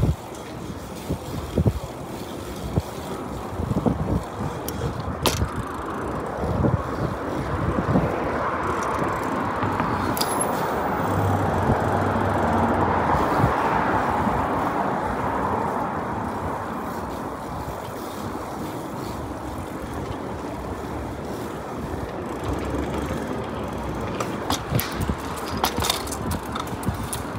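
Street traffic and the rolling rush of a bicycle ride on a city street, an even noise that swells for several seconds in the middle and eases off again. A few sharp clicks near the end.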